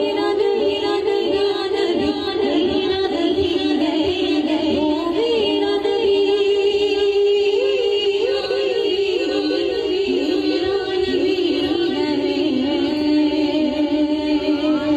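A woman singing a naat, an Islamic devotional song, into a microphone, with quick wavering ornaments on the notes and long held notes.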